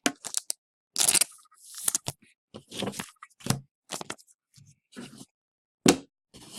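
Hockey trading cards and pack wrapper being handled: about a dozen short rustling and scraping strokes as cards are slid and flipped, the sharpest near the end.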